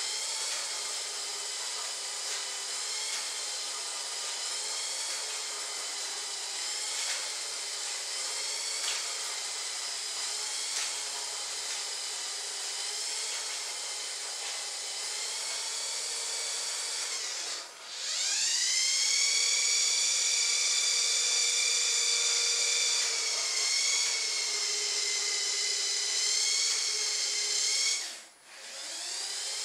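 Small DC toy-car motor and gearbox spinning a toy-helicopter propeller on a homemade fan-driven RC car, giving a steady high whine. The whine cuts out twice, a little past halfway and again near the end, and winds back up with rising pitch each time. It also sags briefly now and then: the steering and drive share three AAA batteries, and the drive motor loses power whenever the steering is used.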